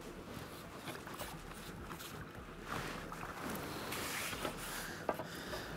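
Quiet water lapping and splashing at the edge of the reservoir, with a few small clicks and knocks and a short sharp click about five seconds in.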